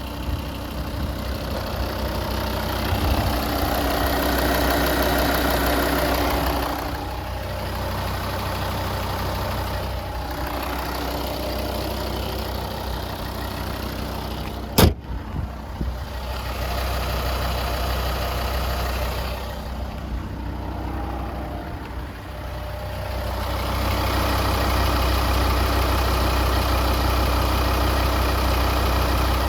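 A warmed-up car engine idling steadily, with no knock to be heard: the extraneous knock it makes when cold has gone once it reached operating temperature. The sound swells and fades in stretches, and a single sharp click comes about halfway through.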